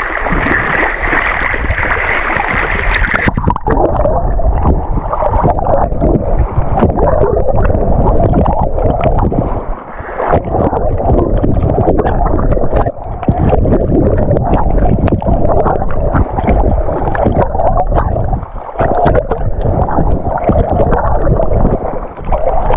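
Water sloshing and splashing loudly around a camera held at the sea surface as a swimmer moves through the water, with many short splashes. A few seconds in the sound turns duller and more muffled.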